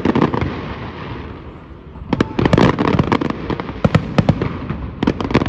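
Aerial fireworks show: shells bursting into dense crackling. One wave of crackle dies away over the first second or so, a second starts about two seconds in, and a third near the end.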